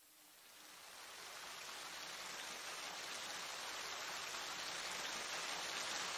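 A steady rushing hiss of water, fading in from near silence over the first two seconds and growing slowly louder.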